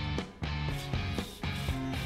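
Background music: guitar-driven rock with a steady beat.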